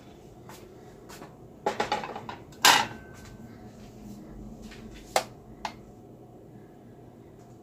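A dinner plate clattering against other dishes, then set down with a sharp clink that rings briefly, followed by two lighter clicks.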